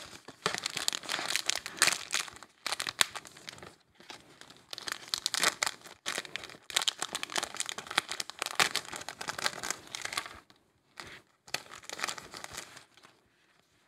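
Thin clear plastic sticker bag crinkling as it is opened and handled and the flake stickers are taken out. It comes in irregular bursts of rustling with short pauses between them.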